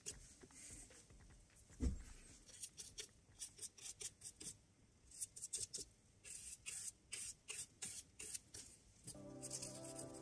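Flat paintbrush bristles brushing across the wooden deck planks of a model ship: a run of short, dry scratchy strokes, with a single low knock about two seconds in. Music comes in near the end.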